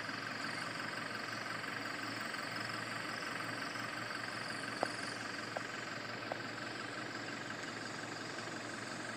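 Steady low hum of distant heavy trucks' engines idling, with a constant high chirring over it and a few faint clicks about halfway through.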